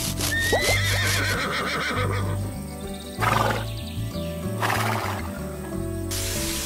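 A cartoon horse whinny, a wavering high call in the first second or so, over background music, followed by two short breathy bursts. A steady hiss of water spraying from a hose starts near the end.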